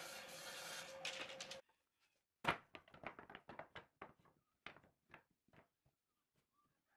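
Table saw running steadily with a constant hum as a board is fed through, cut off abruptly about a second and a half in. Then a string of wooden knocks and clatters as cut boards are set down and shifted on a wooden tabletop, the loudest knock first, about two and a half seconds in.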